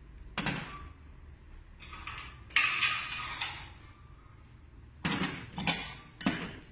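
Kitchenware knocking and clinking: bowls set down beside the stove and a metal ladle against an aluminium pot. There are several separate clatters, one about half a second in, a longer run around three seconds in, and three quick ones near the end.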